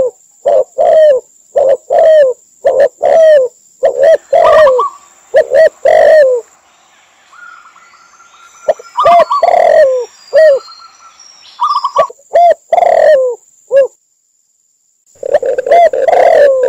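Recorded dove calls from spotted, red collared and zebra doves mixed together: short, low coos repeated about twice a second, with higher cooing notes mixed in. The cooing thins out for a couple of seconds past the middle and cuts to dead silence for about a second near the end, where the recording is spliced, before dense cooing resumes.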